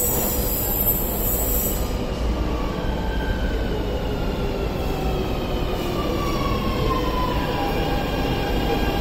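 MTR South Island Line S-train pulling into the platform, its motors whining in several tones that slide steadily down in pitch as it slows to a stop, over a running rumble. A high hiss stops about two seconds in.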